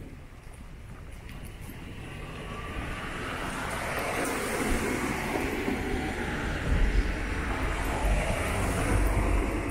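Vehicle noise growing steadily louder over several seconds, as of traffic approaching, with gusty low wind rumble on the microphone in the second half.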